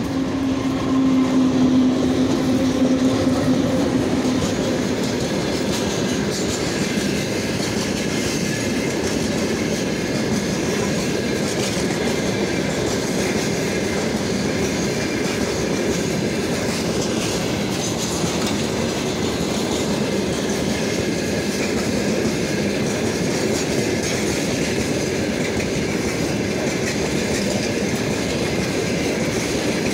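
A freight train hauled by a VL11 electric locomotive rolling past at close range. A steady hum is loudest in the first few seconds as the locomotive goes by, then the wagons' wheels keep up a continuous clickety-clack over the rail joints.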